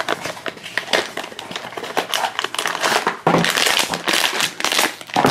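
Packaging crinkling and crunching in the hands as the next blind-box figure is unwrapped, with a busier stretch of crackling from a little past halfway.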